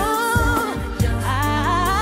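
Female R&B singer singing into a microphone over a backing track of bass and drums; one wavering sung phrase ends and the next begins about a second in.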